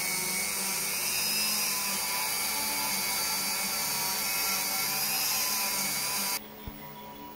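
Electric die grinder running at high speed, its burr grinding the dropout of a titanium bicycle frame: a steady high whine that cuts off suddenly about six seconds in.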